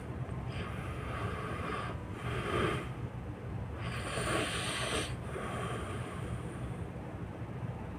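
A sleeping person snoring, with three loud, noisy breaths in the first five seconds over a steady low rumble.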